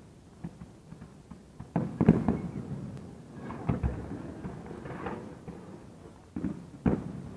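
Aerial fireworks bursting overhead: a string of separate booming bangs with rumbling, crackling tails. The loudest is about two seconds in.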